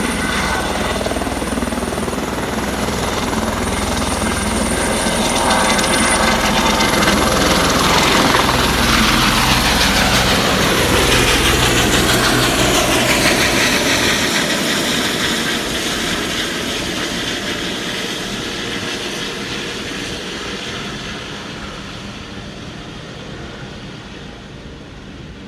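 Helicopter flying past: its rotor and engine noise grows louder, peaks about ten seconds in with a falling pitch as it passes, then fades steadily away.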